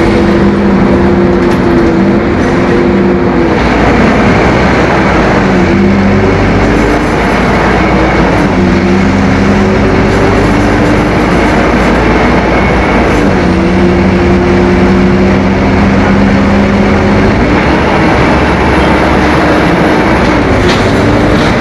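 Scania K-270 bus's five-cylinder inline turbo diesel running loud, its engine note holding steady for a few seconds at a time, then dipping and shifting in pitch several times.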